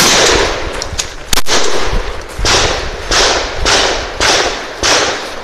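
Pump-action shotgun (a Mossberg 590A1) firing a fast string of about six shots, coming quicker in the second half at roughly one every 0.6 s. Each shot is a sharp blast with a trailing echo.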